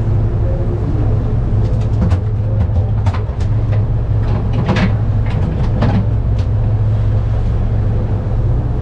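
Fishing boat's engine running steadily with a low hum, with a scattering of short clicks and knocks over the deck from about two to six seconds in.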